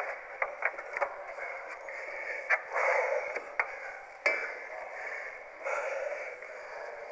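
Scattered knocks and scuffs of a climber's hands and shoes on the wall and its plastic holds, and the rope being handled, heard over a steady background noise.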